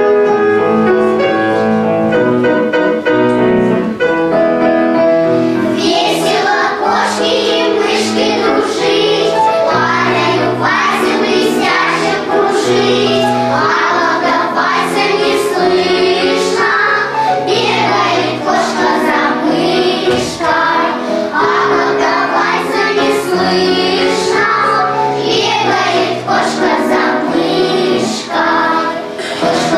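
Children's choir singing a song with instrumental accompaniment. The accompaniment plays alone for about the first six seconds, then the children come in and sing to the end.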